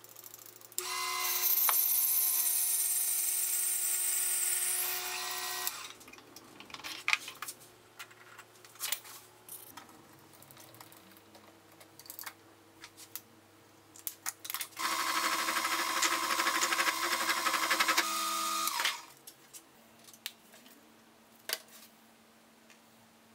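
Mini metal lathe running twice for about five and four seconds, a steady motor whine with cutting hiss as it drills with a bit in the tailstock chuck, winding down at the end of each run. Clicks and knocks of handling come between and after the runs.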